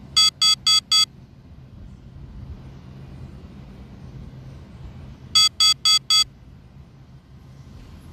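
Low-battery warning of an SG906 Pro drone: two sets of four quick electronic beeps, the first at the very start and the second about five seconds later, signalling that the drone's battery is running low.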